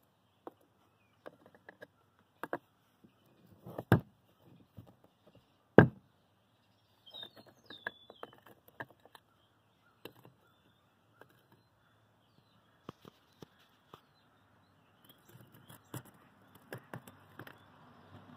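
Light knocks, clicks and scrapes of a cast cement honeycomb disk being handled and set down on a brick, with two sharper knocks a couple of seconds apart and a cluster of small clicks near the end.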